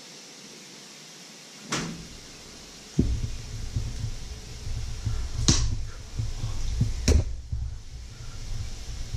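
A small cardboard carton being handled and opened, with sharp clicks and snaps about halfway through and near the end, over a steady hiss. An earlier click comes a little before two seconds in, and about three seconds in a low, uneven throbbing rumble starts and carries on.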